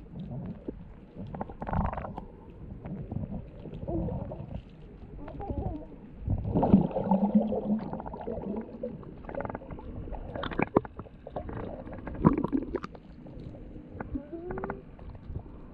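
Muffled underwater sound picked up by a camera held below the surface: a low rumble of moving water, with scattered sharp clicks and knocks and a louder swell about halfway through.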